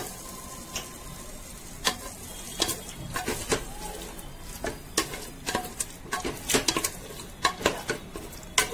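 A spatula stirring thick marinated chicken in a pressure cooker: irregular scraping and knocking strokes against the metal pot, a few a second, over a faint sizzle of hot oil.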